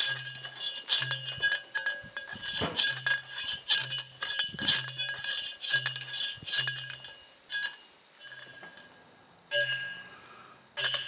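Manual steel post driver slammed down repeatedly onto an 8-foot ground rod, each strike a sharp metallic clank with a ringing tail, about two a second. After about seven seconds the strikes thin out to a few spaced blows.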